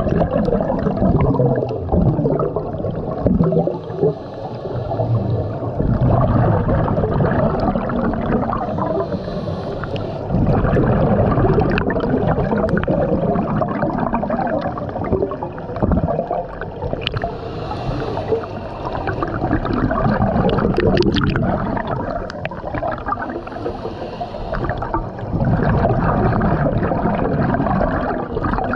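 Scuba diver's regulator breathing heard underwater: exhaled bubbles gurgle in bursts lasting a few seconds, with quieter pauses for the inhale between them.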